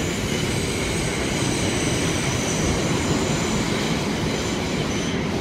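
New York City subway car running through a tunnel, heard from inside the car: a steady rumble and rattle with a faint, steady high whine above it.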